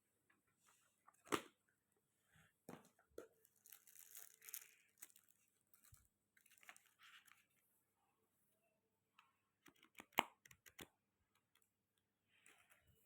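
Paper and plastic from a journaling kit being handled and unwrapped: soft rustling and crinkling, broken by a few sharp clicks and taps, one about a second in and a quick cluster near ten seconds.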